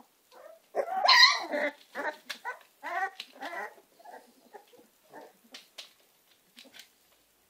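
American Staffordshire terrier puppies yelping and whining: one loud, high yelp about a second in, then a quick run of shorter squeals that tail off into faint whimpers, with light clicks between them.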